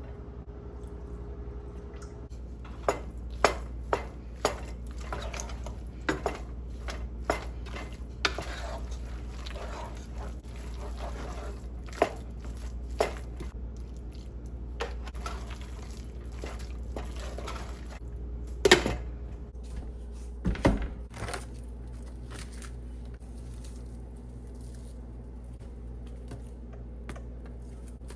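Kitchen clatter: dishes and utensils knocking and clinking in an irregular string of sharp clicks, loudest around two thirds of the way through, over a steady low hum.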